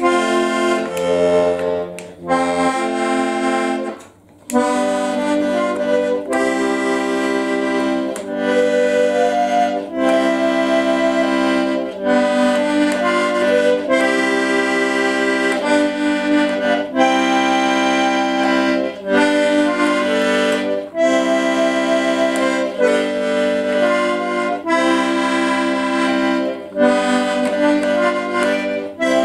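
Hohner button accordion playing a tune: held chords over a steady low bass note, changing about every second, with a short break about four seconds in.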